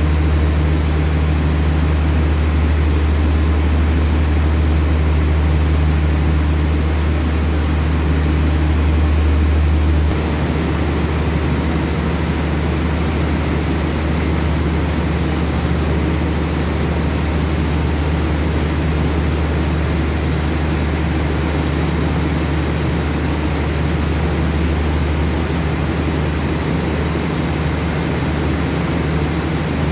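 Steady low diesel drone from a stopped passenger train's engines idling. It drops a little in level about ten seconds in and then holds steady.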